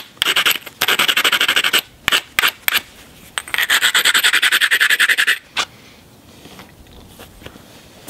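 Abrading stone ground in quick, short rasping strokes along the edge of a cherty mudstone biface, in two spells with a few light clicks between. This is platform grinding to strengthen the edge before striking off a large flake, heavier than usual because the rock is so unforgiving.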